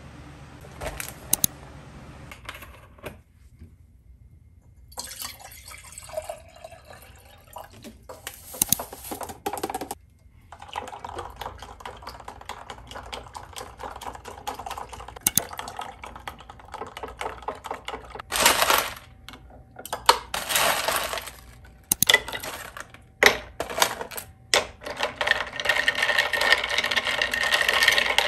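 Iced coffee being mixed in a glass mason-jar mug on a stone counter: a spoon clinks and taps against the glass with many small clicks, alongside short stretches of liquid sounds. The stirring grows busier and denser near the end.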